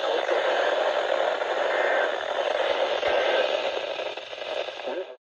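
Steady static hiss from a radio receiver carrying an emergency alert broadcast, with no voice, cutting off abruptly about five seconds in.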